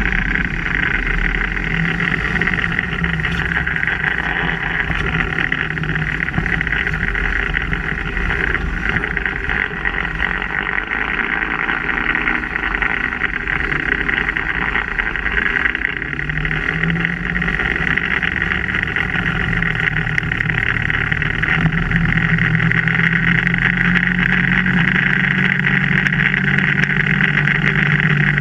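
2016 Polaris RZR 1000 driving, heard from beneath the front end at the front differential: a steady high-pitched noise over a low drivetrain hum, and the hum grows louder about two-thirds of the way through. This is the front differential noise the owner is documenting on a nearly new machine with under 25 hours.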